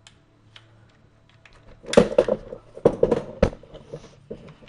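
Clicks and clacks of a WE Glock 17 airsoft pistol's metal slide and frame being handled and fitted together: a few faint clicks, then from about two seconds in a run of loud, sharp clacks.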